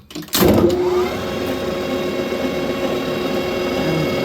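Clausing Colchester metal lathe's two-speed motor switching on about half a second in, its pitch rising briefly as it spins up. It then runs steadily with an even whine at its high speed of 750 RPM.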